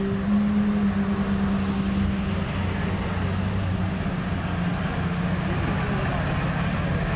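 Horch Kfz 17 radio car's V8 engine running steadily as it drives along a dirt track.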